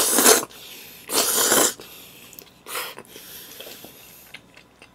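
A person loudly slurping spaghetti noodles: two long slurps in the first two seconds and a shorter one near three seconds, then a softer breathy sound until just past four seconds.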